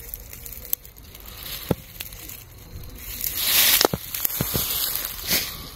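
Dry fallen leaves and garden plant foliage rustling and crackling as someone moves through them, with a few sharp clicks and a louder rustle about three and a half seconds in.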